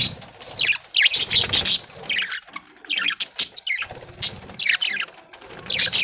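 Flock of budgerigars chirping and chattering in quick repeated bursts, with a flutter of wings near the start.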